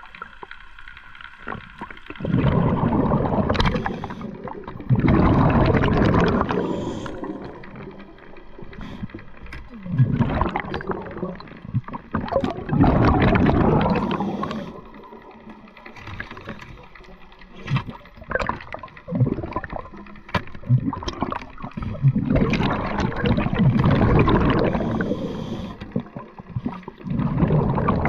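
Scuba diver breathing through a regulator underwater: a gurgling burst of exhaled bubbles every few seconds, with a quieter hiss between breaths.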